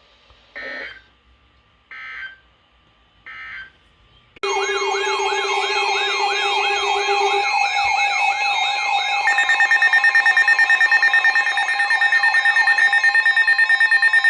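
Emergency Alert System broadcast signals: three short data bursts of the digital end-of-message code, then a loud alert tone. The tone holds steady pitches under a repeating siren-like warble, shifts pitch partway through and cuts off abruptly near the end.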